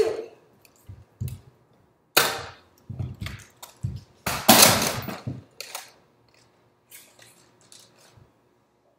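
A toy-weapon play fight: a run of sharp snaps, knocks and thuds from plastic Nerf blasters, a toy sword and quick movement. The longest and loudest clatter comes about four and a half seconds in, with a few small clicks near the end.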